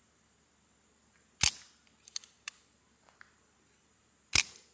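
Metal clicks of a Colt Woodsman Match Target .22 pistol's action being worked by hand. Two sharp, loud clacks about three seconds apart, with a few lighter clicks between them.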